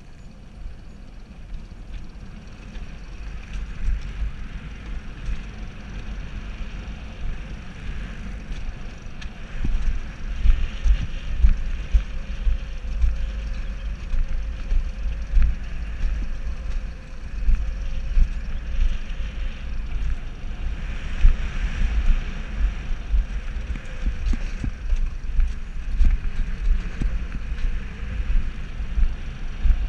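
Alpine coaster sled running down its steel rails: a continuous rattling rumble from the wheels on the track, with wind buffeting the microphone. It grows louder about ten seconds in.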